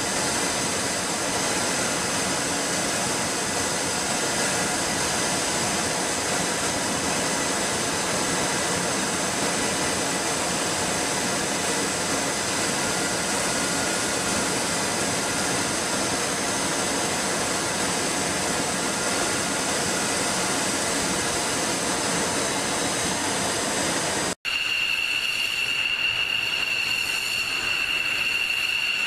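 Jet engine noise running steadily, a dense rush with several steady high whines. About 24 seconds in it cuts sharply to a fighter jet engine at idle with one strong, steady high-pitched whine.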